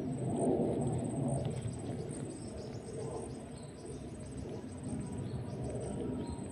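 Outdoor insect and bird ambience: a steady, high insect trill with faint bird chirps over a low rustling noise.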